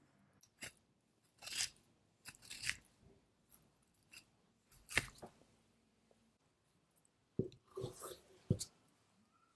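A knife cutting through a block of Japanese Black wagyu knuckle (kamenoko), with soft, wet, sticky sounds as the meat is sliced and peeled apart by a gloved hand. The sounds come in irregular short strokes, with a cluster of sharper ones near the end.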